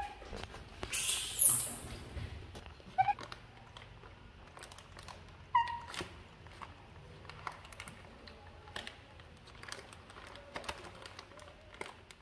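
Pet baby macaques giving a few short, high chirping calls, with a louder harsh noise about a second in and light crinkling and tapping as a plastic bread bag is handled in a plastic basket.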